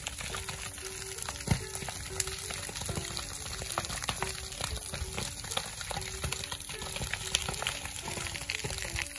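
Dry brush fire burning with dense crackling and popping, one sharp loud pop about a second and a half in. Quiet background music plays underneath.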